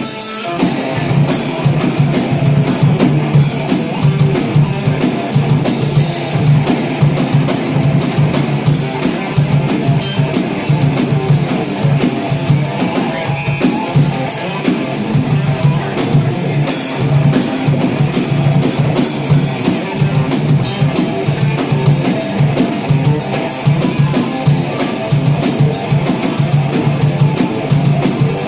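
Live rock band playing, drum kit and guitar keeping up a dense, steady beat.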